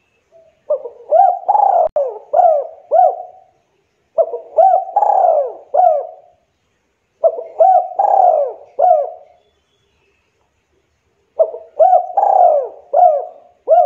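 Spotted dove cooing: four phrases of about five quick coos each, every coo rising and falling in pitch, with short pauses between the phrases.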